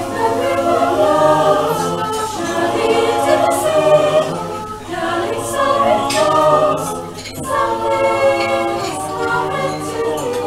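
Small choir singing a cappella in several parts, with sustained chords and brief pauses between phrases.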